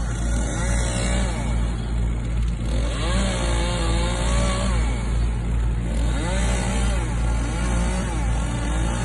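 Engine of tree-removal equipment running steadily, its pitch rising and falling again and again as it is revved and loaded.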